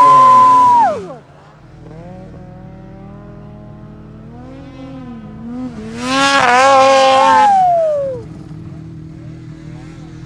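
Snowmobiles on a hill climb. One runs at high revs and throttles off about a second in, while another idles steadily underneath. From about six to eight seconds a second loud full-throttle run builds, and its revs fall away at the end.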